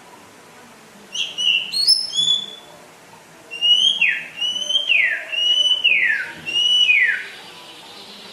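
White-rumped shama (murai batu) singing. A short burst of high, varied notes about a second in is followed by four clear whistles about a second apart, each held level and then sliding down in pitch.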